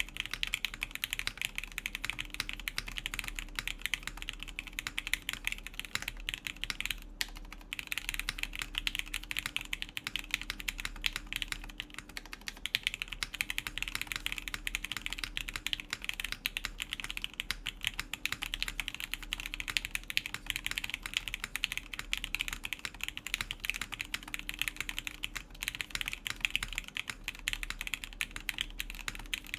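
Continuous typing on an Etar87 mechanical keyboard in its top-mount setup, with an aluminum full plate and lubed Gateron Yellow linear switches: a dense, uneven stream of keystroke clacks, with a short pause about seven seconds in.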